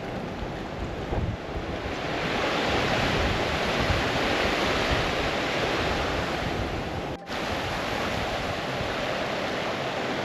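Steady rushing of a moorland stream, with wind buffeting the microphone. The rush grows louder about two seconds in and breaks off for an instant about seven seconds in.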